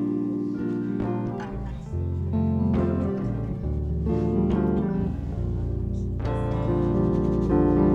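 Background music: plucked and bowed strings with piano and a low bass line, notes changing about once a second.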